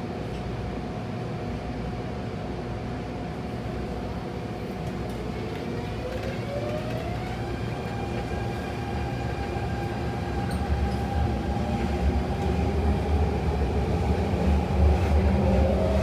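Adtranz-CAF A-Train's AEG GTO-VVVF traction inverter and motors whining as the train pulls away: steady tones first, then the pitch rises in a glide and holds at a new level, and starts rising again near the end. Low rumble of the train grows louder over the second half.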